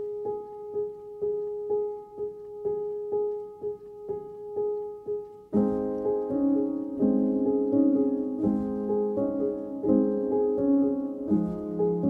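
Background music on piano: a single note repeated about twice a second, joined about five and a half seconds in by fuller chords.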